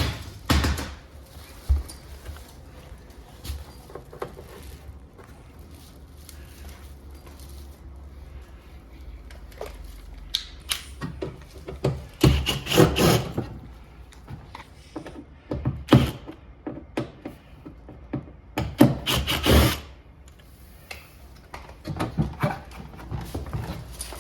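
Irregular knocks, clicks and scraping from hands working on a Toshiba floor-standing air conditioner's casing and parts, with two longer noisy spells of handling.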